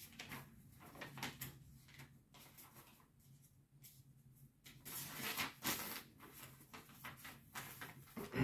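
Faint clicks, knocks and scraping of a screwdriver driving screws into the plastic wheel holders of a Nilfisk Core 140 pressure washer, with a louder stretch of scraping about five seconds in.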